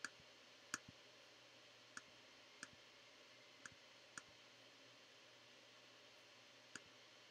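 Faint computer mouse clicks, about seven single clicks at irregular intervals, over near-silent room tone.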